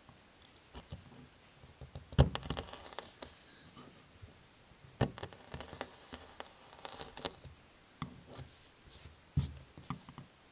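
Small steel chisel scraping and chipping at gelcoat to open an osmosis blister: several short bursts of scratching and clicks, the sharpest tick about two seconds in, with more scrapes around five, seven and nine seconds in.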